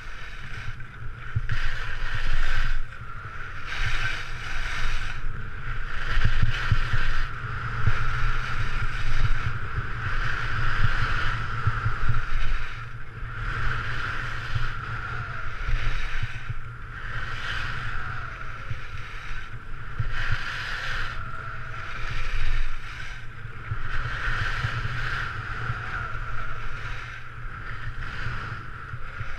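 Skis scraping and hissing across a groomed piste in a series of turns, a swell about every one to two seconds, over a steady low wind rumble on the camera's microphone.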